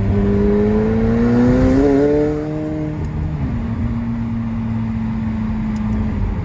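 McLaren 720S Spider's twin-turbo 4.0-litre V8 heard from inside the cabin, rising in pitch under acceleration for about two seconds. It then eases off and, a little past three seconds in, drops to a lower steady note as the gearbox shifts up and the car cruises.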